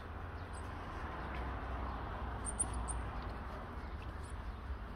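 Steady outdoor background noise over a low rumble, with a few faint, very short high-pitched chirps about half a second, two and a half and four seconds in.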